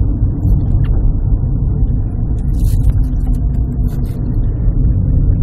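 A car driving along an open road: a steady low rumble of engine and tyre noise.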